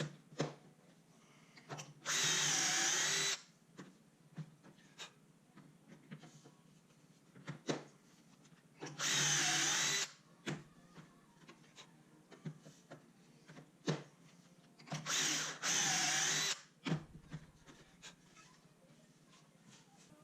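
Power drill boring pocket holes in wooden frame rails, running in three short bursts of one to two seconds each, with knocks and clicks of handling the work between them.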